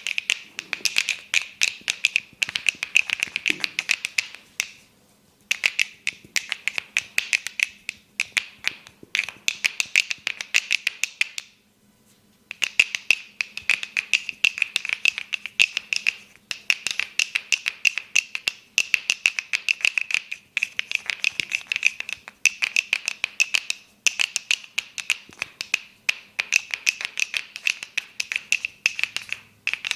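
Rapid, rhythmic clicking and popping from the barber's hands working percussively on the head during a head massage, about six strikes a second. It comes in runs of several seconds, with short breaks about five and twelve seconds in.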